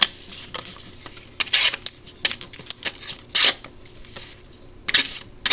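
Hard objects being handled: a run of clicks and rattles, with two brief high metallic pings about two and three seconds in.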